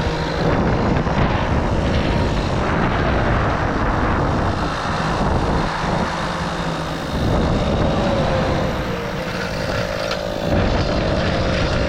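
Highway traffic rushing past steadily, vehicles swelling and fading one after another.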